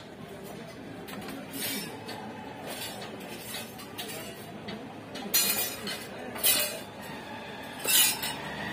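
Plastic Splendor speedometer housing handled and turned over in the hands: a few short, sharp clicks and clinks, the loudest about five, six and a half and eight seconds in.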